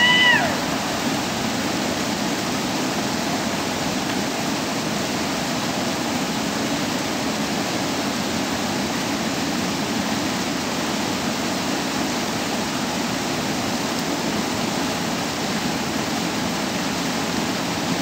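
Floodwater rushing steadily over a low concrete river ford and spilling down its downstream edge as rapids. Right at the start there is a brief falling cry, the loudest moment.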